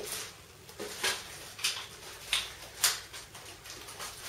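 Handling noises: short rustles and clicks of things being moved and set down, about six in four seconds and irregularly spaced, the sharpest near three seconds in.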